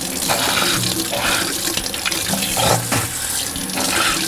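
Kitchen tap running into a sink, the water splashing unevenly as something is held under the stream.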